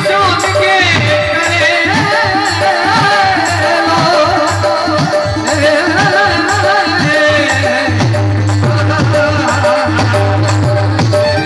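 Chetavani bhajan music: a voice singing a winding melodic line over folk accompaniment with hand drum and rattling percussion and a steady low drone.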